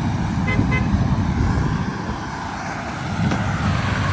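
Steady rumble of a vehicle driving, heard from inside the cab, with two short high beeps a little over half a second in.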